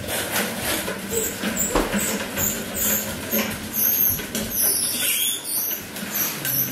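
Hard plastic wheels of a toddler's ride-on toy bike rolling over ceramic floor tiles, a continuous rolling rumble with small clicks.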